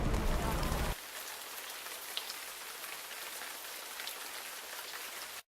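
Wet snow falling in a storm: a steady hiss with faint pattering ticks, under a low rumble for about the first second. The sound cuts off abruptly near the end.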